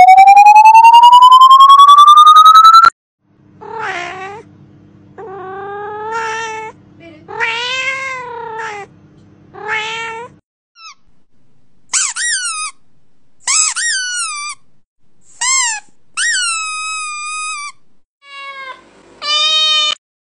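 A loud electronic tone sweeping upward in pitch cuts off suddenly about three seconds in. A series of about ten cat meows follows. The first few are lower and drawn out over a steady low hum, and the later ones are higher, shorter mews with falling pitch.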